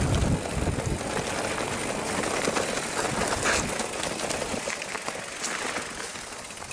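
Mountain bike rolling down a dirt trail: steady tyre and trail noise with many quick rattles and clicks from the bike, and a low rumble near the start.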